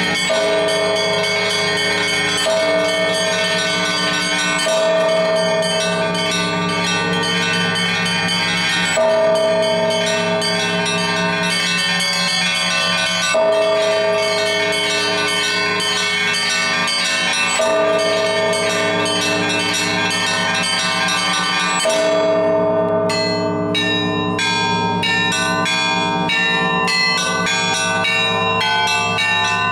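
Russian Orthodox church bells rung by one bell ringer: a larger bell struck every few seconds over a continuous weave of smaller bells. About 22 seconds in the pattern changes and the small high bells ring out in quicker, separate strikes.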